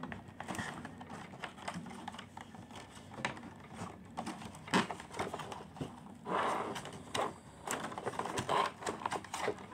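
Plastic and cardboard toy packaging being handled, irregular clicks, taps and brief scrapes as the plastic tray is worked out of its box.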